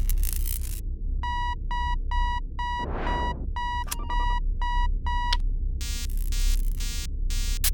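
Synthesized sci-fi sound effects over a steady low electronic hum: a run of evenly spaced, single-pitch electronic beeps at about two to three a second, crossed by a short whoosh midway. After a short gap, near the end they change to harsher buzzing pulses at about two a second.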